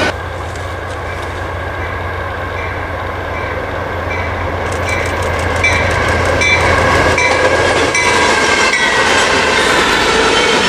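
Norfolk Southern freight train's diesel locomotives approaching and passing, a steady low engine hum growing louder. From about five seconds in, the wheels click over the rail joints as the locomotives and then the autorack cars roll by.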